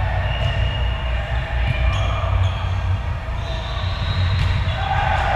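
Indoor volleyball rally: sneakers squeaking on the sport-court floor and a few sharp thuds of the ball being hit, with voices calling, over a steady low rumble of the big echoing hall.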